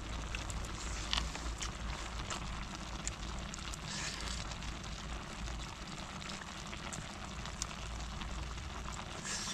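A pot of food simmering on a portable gas camping stove turned low: a steady hiss with a few light clicks.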